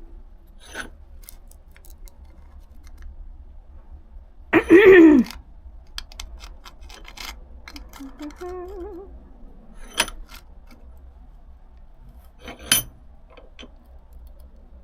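A steel sheet-metal repair piece being shifted and re-clamped in a bench vise: scattered metallic clicks and knocks, with a loud falling twang of the sheet about four and a half seconds in, and sharp clanks near ten and thirteen seconds.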